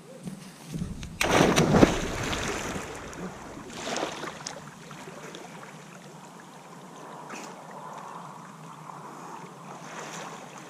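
A person diving into a dam with one loud splash a little over a second in, followed by water sloshing and lighter splashing as he surfaces and wades back through the shallows.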